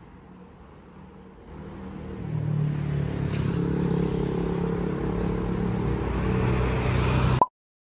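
City street traffic, with a motorcycle engine running close by: it grows loud about two seconds in, holds steady, and cuts off suddenly near the end.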